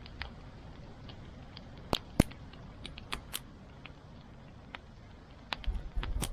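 Wood fire crackling, with scattered sharp pops and clicks; the two loudest come in quick succession about two seconds in. A few low thumps follow near the end.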